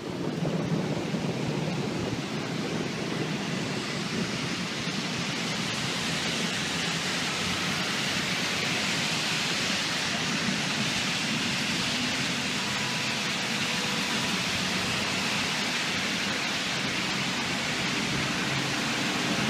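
Heavy thunderstorm rain falling in a steady, even hiss.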